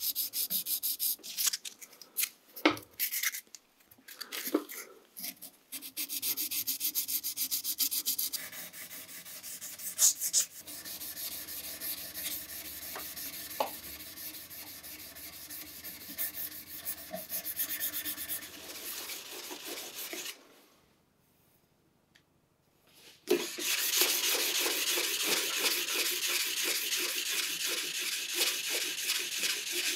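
Steel knife parts hand-sanded with abrasive paper: fast back-and-forth scratching strokes, first from sandpaper rolled around a small part held in a vise, then from the blade rubbed flat on a sheet of sandpaper. The sanding is quieter through the middle, stops for a couple of seconds a little past two-thirds of the way, then resumes loud and steady.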